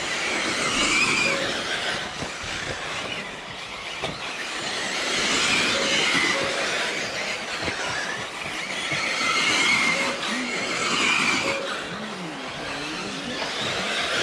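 Radio-controlled race cars lapping a track: motor whine and tyre noise swell and fade every few seconds as the cars pass.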